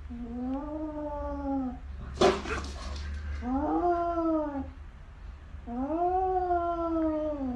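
A threatened cat yowling long, low threat calls three times, with a sharp hiss between the first and second yowl. The cat is in a defensive, arched-back stand-off with its own reflection in a mirror.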